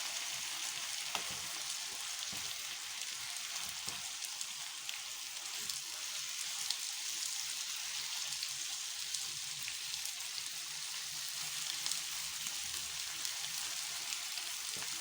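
Liver and onions sizzling steadily in hot fat in a pan, seared over high heat, with a few faint clicks.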